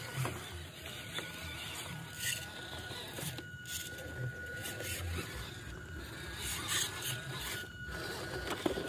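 Small electric motor and plastic gearbox of a WPL C54 RC crawler whirring as it crawls over rocks and dirt: a thin steady whine with irregular clicks and rattles from the drivetrain and tyres.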